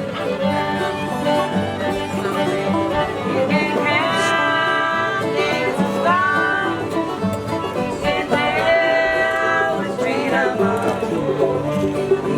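Acoustic string band playing an instrumental passage: a fiddle plays long bowed notes that slide up into pitch, over a plucked banjo and guitar.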